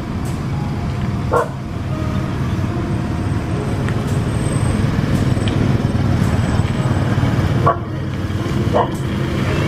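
Motor traffic running along the road, including a passing motorbike, as a steady engine rumble. Three short dog barks stand out over it, one about a second and a half in and two near the end.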